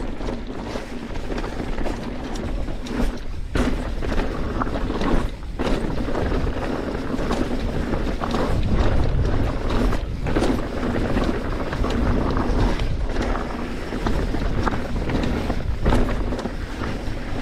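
Wind rushing over the microphone as a mountain bike rolls downhill on a rough trail, with frequent knocks and rattles from the tyres and bike over rocks.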